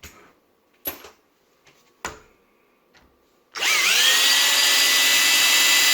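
Two light knocks, then a power drill spins up and runs at a steady speed with no load for a couple of seconds.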